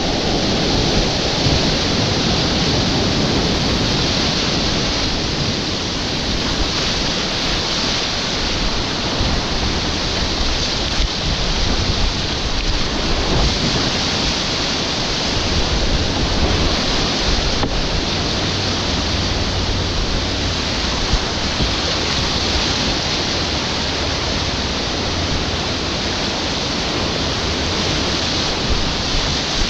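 Whitewater rapids rushing loudly and steadily around a kayak, heard from within the current, with water splashing and wind buffeting the microphone.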